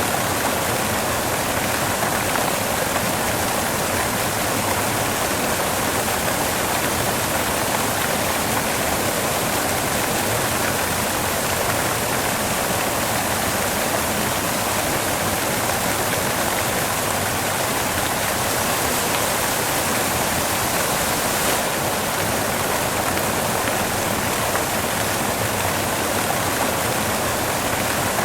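Steady white noise: an even hiss that spans all pitches, with no change in level.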